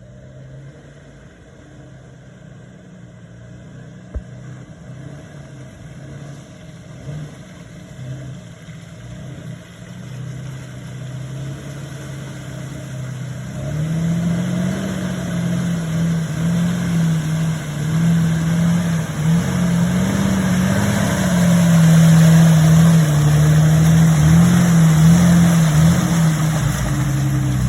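Jeep TJ engine running and growing steadily louder. From about halfway on, its pitch rises and falls with the throttle.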